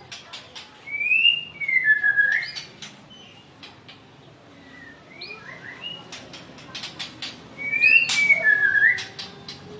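White-rumped shama (murai batu) singing loud whistled, gliding phrases mixed with sharp clicking notes, in the agitated mood that hobbyists call angry. The two loudest phrases come about a second in and near the end.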